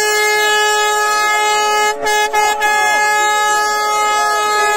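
An air horn held on one long, steady high note. It cuts out briefly two or three times about two seconds in, with faint shouting underneath.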